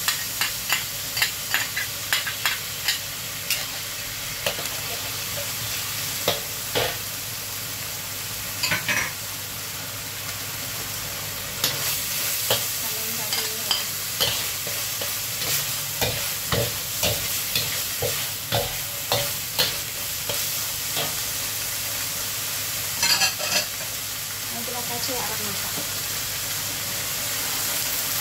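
Minced pork frying in a hot wok, with a steady sizzling hiss. A metal spatula repeatedly scrapes and taps against the wok as the meat is stirred, in runs of sharp clicks with calmer stretches of sizzle between them.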